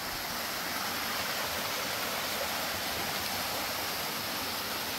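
Steady rush of water from a small stream tumbling over little cascades.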